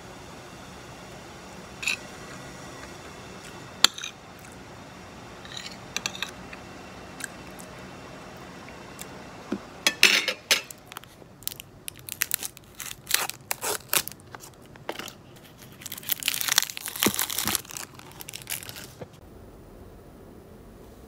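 Metal spoon and fork clinking and scraping against a plate while eating rice: a few separate clinks in the first half, then a busy run of scrapes and clinks from about ten seconds in that stops a couple of seconds before the end.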